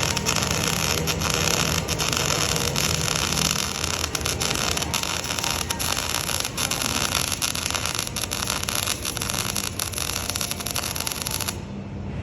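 Electric arc welding: a steady crackling hiss with many brief breaks in the arc, cutting off suddenly near the end.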